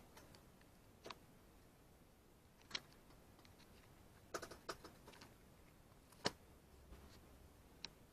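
Near silence: quiet room tone broken by about six faint, short clicks at irregular intervals.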